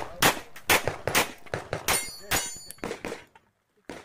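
Pistol shots fired in quick succession, about six in the first two and a half seconds, with a metallic ring among them around two seconds in; the firing then stops.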